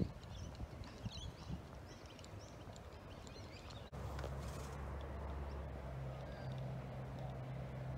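Birds chirping over faint outdoor background for the first couple of seconds. About halfway through the sound cuts off abruptly and a steady low hum takes over.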